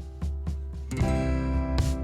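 Background music with a steady beat and strummed guitar; a new chord comes in about a second in.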